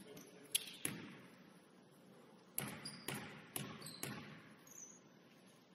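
Basketball bouncing on a hardwood gym floor: a couple of bounces about a second in, then four more at an even half-second pace around the middle, each ringing in the large hall, like a shooter dribbling before a free throw.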